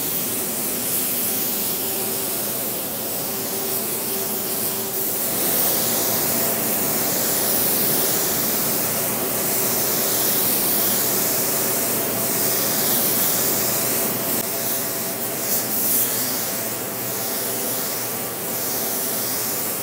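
Sagola 4600 Xtreme spray gun hissing steadily as it lays a coat of clear, the hiss swelling and fading about every second or so. Underneath runs a steady hum from the inflatable spray booth's blowers.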